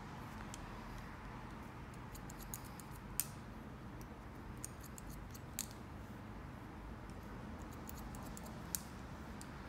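Hairdressing scissors snipping through wet hair: small clusters of sharp blade clicks, the loudest about three seconds in and again near the end, over a low steady hum.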